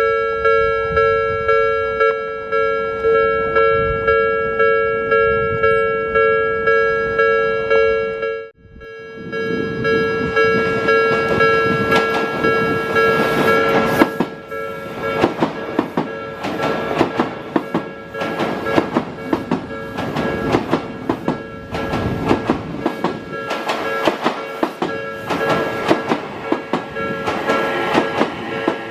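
Japanese level-crossing alarm ringing a steady two-tone electronic 'kan-kan' about one and a half times a second. After a short break about a third of the way in, an Odakyu Line electric train runs through the crossing, its wheels clattering over the rail joints, while the alarm keeps ringing.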